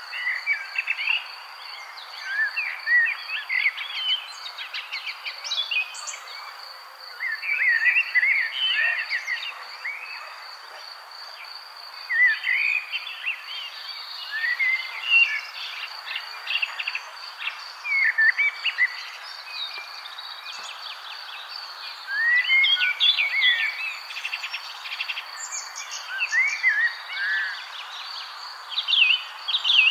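Nature ambience of birds chirping in short repeated phrases over a steady high insect trill, like a cricket's, that is strongest in the first half.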